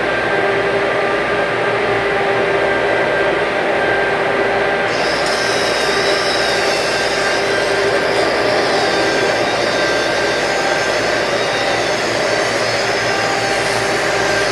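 Overhead stick (SMAW) welding: a steady arc hiss and crackle over a constant hum with several steady tones, with a sharper high hiss coming in about five seconds in.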